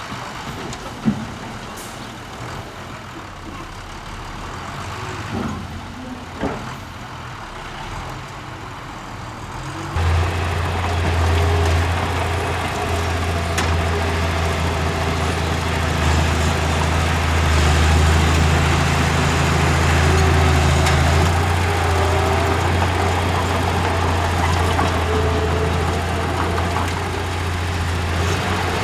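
Heavy diesel engine of earthmoving machinery running, with a few sharp knocks in the first ten seconds. About ten seconds in, it turns suddenly louder with a strong low hum and stays that way.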